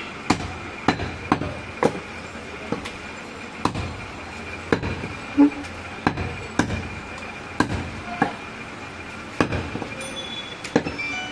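A large butcher's knife chopping through goat meat and bone onto a thick wooden chopping block. The sharp knocks come at an uneven pace, roughly one or two a second, and the loudest falls about halfway through.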